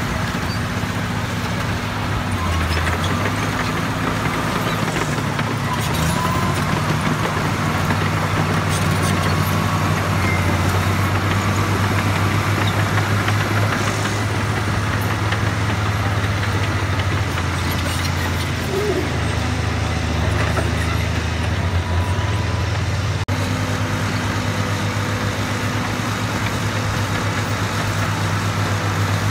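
Caterpillar crawler machine's diesel engine running under working load while handling crushed rock. The low engine note rises and falls as the load changes, with faint clanks of metal and stone, and it changes abruptly about 23 seconds in.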